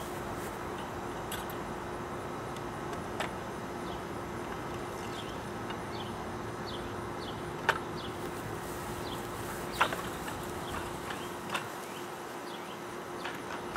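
Summer outdoor insect drone with a steady hum and scattered short, falling chirps. Two sharp knocks about two seconds apart stand out past the middle, from wooden croquet mallets being handled in their wooden rack.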